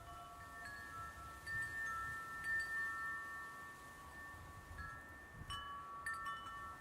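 Background music of soft, held bell-like notes layered over one another, with a few brief high pings near the end.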